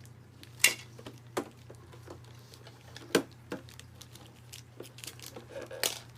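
Small plastic toy pieces clicking and knocking as they are handled, several sharp separate clicks over a few seconds, the loudest about half a second in and about three seconds in, over a steady low hum.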